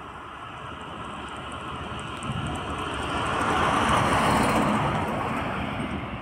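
A MAN semi-truck pulling a tipper trailer drives past close by. Its engine and tyre noise builds up, is loudest about four seconds in as it passes, then fades.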